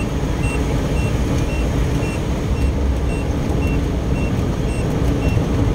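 Steady road noise from a moving car, with a short high electronic beep repeating evenly about twice a second.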